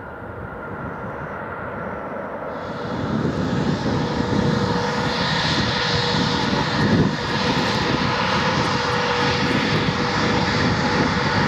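Twin jet engines of a Sukhoi Superjet 100 taxiing close by: a steady roar and hiss with a held whine. The sound jumps up about two and a half seconds in, replacing the quieter sound of a more distant airliner's engines.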